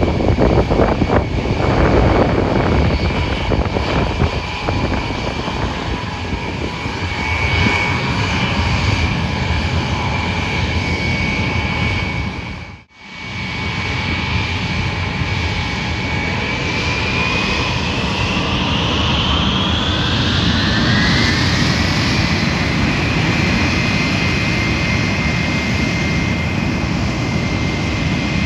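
Ilyushin Il-76TD's four Soloviev D-30KP turbofan engines running loud, with a steady whine over the rumble. After a brief break in the sound about halfway, the whine climbs in pitch over some five seconds and then holds high as the engines spool up for the takeoff run.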